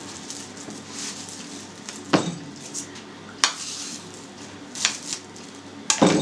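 Plastic cling film rustling as it is pulled off the roll and spread over pieces of dough, with four sharp knocks against the cutting board spread over the six seconds.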